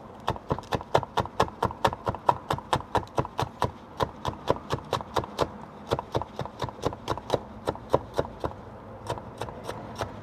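Kitchen knife chopping rapidly and evenly on a cutting board, about four to five strokes a second, mincing an ingredient very fine. The strokes thin out near the end.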